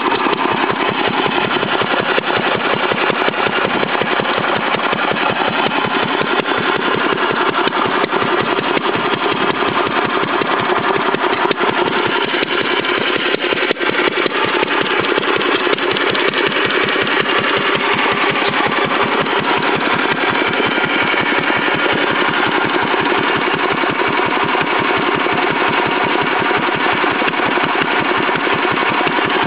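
Witte B oilfield engine running steadily, its exhaust coming straight out of a bare pipe with no muffler, giving a rapid, even beat.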